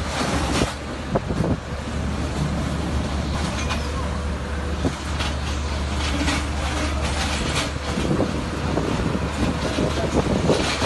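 A steady low engine drone under a wash of noise, with scattered knocks and clatter.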